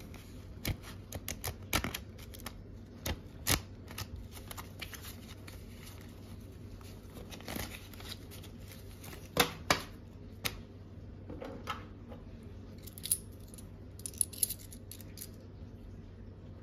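Stack of paper euro banknotes being handled on a wooden table: irregular crisp snaps, flicks and taps as the notes are riffled and squared up, the sharpest pair about nine and a half seconds in. Near the end come a few light, high clicks as a coin is handled.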